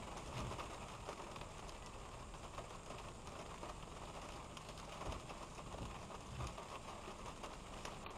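Rain pattering on a car's windshield and body, heard from inside the car, many faint ticks over a steady hiss. A low road rumble eases off in the first seconds as the car rolls to a stop.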